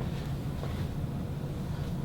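Steady low background hum with faint, brief rustling or handling sounds.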